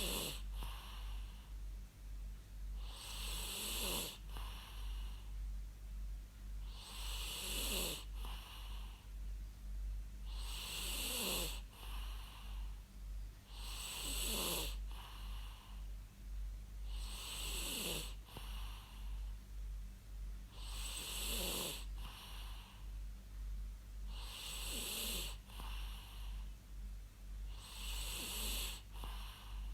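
A person snoring in a slow, even rhythm, one snore about every three and a half seconds. Each snore is a hissing, raspy breath that ends in a falling tone, over a steady low hum.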